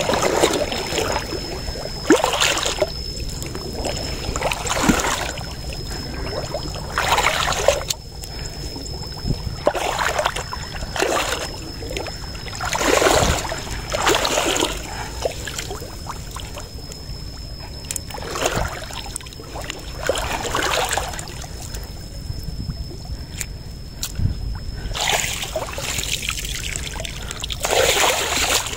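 Legs wading through shallow muddy water: a splashing slosh with each stride, every second or two, as fish are driven into a gill net.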